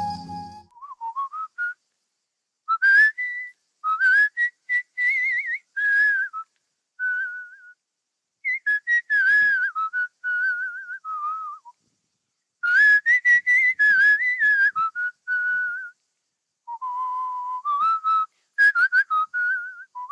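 A man whistling a wavering tune in short phrases, with brief pauses between them.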